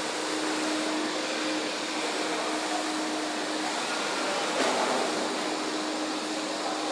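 Indoor swimming pool hall ambience: a steady wash of noise with water sounds in it and a steady low hum, swelling briefly about four and a half seconds in.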